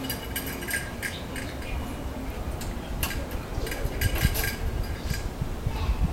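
Scattered light clinks and jingles of small hard objects, irregular and coming in little clusters, over a low rumble.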